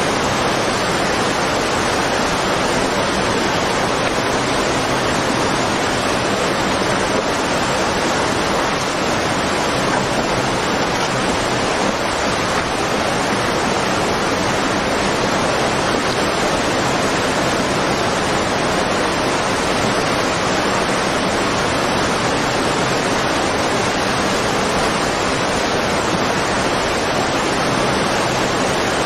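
Tsunami floodwater rushing inland: a steady, loud rush of moving water.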